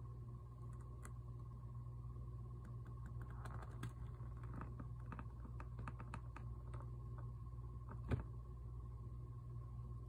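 Faint clicks and ticks of a clear plastic food container being handled, clustered in the middle with one sharper click near the end, over a steady low hum.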